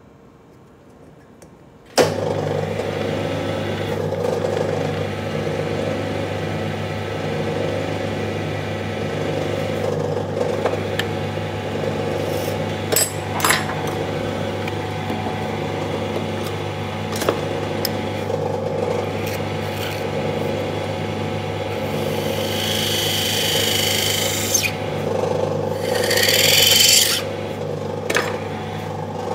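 A small motorized spindle holding a wooden brush piece in a drill chuck starts about two seconds in with a click and then runs with a steady hum. Near the end there are two stretches of hissing scrape as a hand-held tool shaves the spinning wood.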